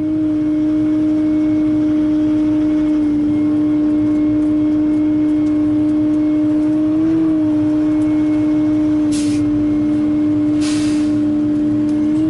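Wheeled excavator running steadily at raised revs, a steady whine from engine and hydraulics, with two short hisses a second and a half apart near the end.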